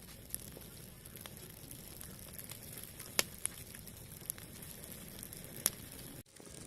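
Cooking fire crackling: a steady low hiss with a handful of sharp pops, the loudest about three seconds and five and a half seconds in. The sound breaks off briefly near the end.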